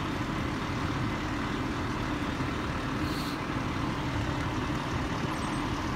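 Steady low rumble of a vehicle engine, with one brief hiss about three seconds in.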